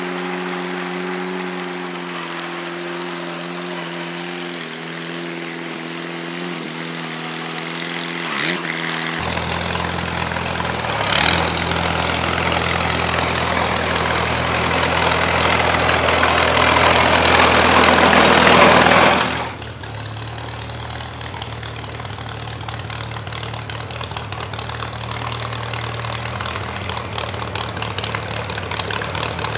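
Farmall H tractor's four-cylinder engine running as the tractor drives, growing louder as it comes up close and passes, with two short sharp clicks along the way. The sound drops off abruptly about two-thirds of the way through, and the engine then runs on steadily at a lower level.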